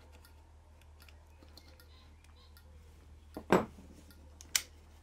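Light clicks and taps from handling a hazard warning switch panel on a bench, with a louder knock about three and a half seconds in and a sharp click about a second later, over a low steady hum.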